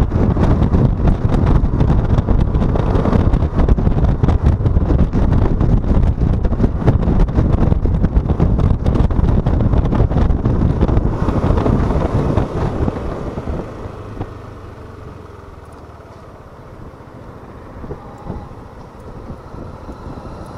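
Wind buffeting the microphone of a rider on a Yamaha XMAX 125cc scooter moving at speed, with the scooter's engine underneath. About thirteen seconds in the wind noise falls away as the scooter slows, leaving a quieter low engine hum.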